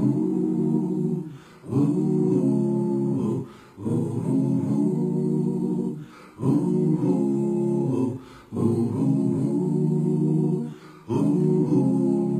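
Wordless a cappella vocal harmony: voices holding chords in repeated phrases of about two seconds, with short breaks between them.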